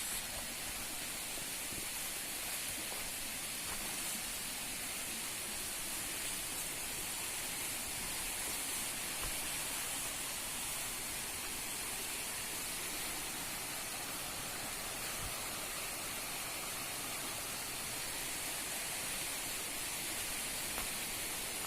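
Steady rushing of a stream's flowing water, an even hiss that holds level throughout.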